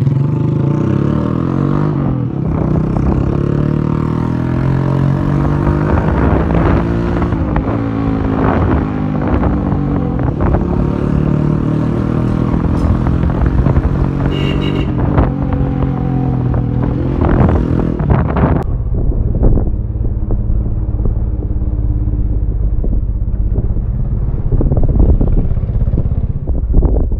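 Motorcycle with a modified exhaust silencer running while being ridden. Its engine note rises and falls again and again as the throttle is opened and eased, then settles into a lower, steadier run in the last third.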